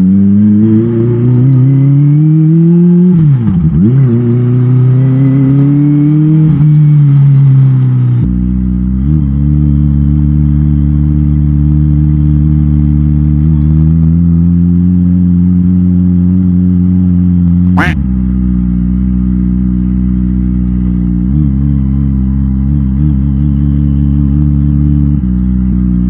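Kawasaki Ninja ZX-25R's 249 cc inline-four engine under way at low road speed, heard from the rider's seat. It climbs in pitch over the first few seconds, dips sharply and briefly around four seconds in, and climbs again. It then runs at a steady pitch with a few brief blips of the throttle. A single sharp click comes about eighteen seconds in.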